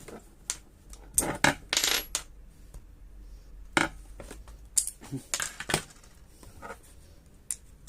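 Steel screwdriver bits clicking and clinking against each other and the magnetic screwdriver handle as one bit is pulled out and another fitted. The clicks are sharp and irregular, with a short scrape about two seconds in.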